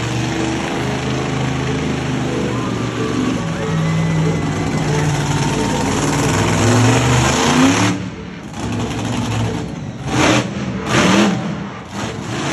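Monster truck engine running hard and revving as the truck drives across the dirt, its pitch climbing in places; about eight seconds in it drops back, then comes three short bursts of revving.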